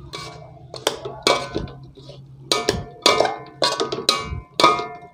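Metal spatula and a second metal utensil clanking and scraping against a metal wok while tossing shredded parotta with egg and vegetables for kottu roti. The strikes come in an irregular run of about eight or nine, each ringing briefly.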